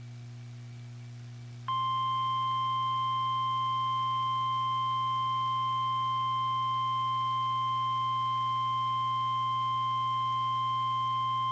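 Weather-radio warning alarm tone: a single steady high beep-like tone that comes on about two seconds in and holds for about ten seconds before cutting off, announcing that a severe thunderstorm warning follows. A low steady hum lies under it throughout.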